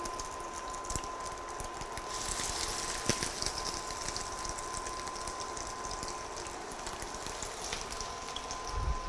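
Breaded fish cakes shallow-frying in hot oil in a frying pan: a steady sizzle with small crackles that grows louder about two seconds in as more cakes go into the pan. A faint steady high tone runs underneath.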